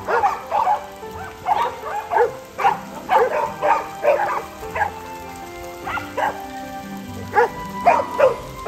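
A pack of dogs barking and yipping, short excited barks coming two or three times a second, over background music with held notes.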